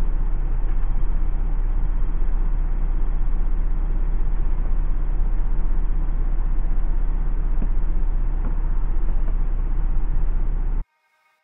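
A DAF lorry's diesel engine idling, heard from inside the cab as a steady low rumble with a fast, even pulse. It cuts off suddenly near the end.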